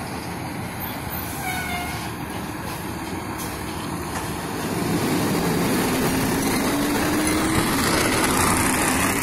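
Fire engine's diesel engine pulling away under load. It grows louder about five seconds in, and the engine note rises as it accelerates.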